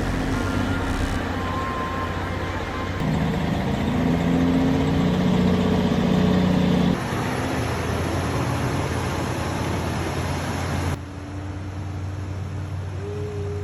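Heavy machinery engines running steadily. The sound changes abruptly twice, about seven and eleven seconds in, as one machine's running gives way to another's.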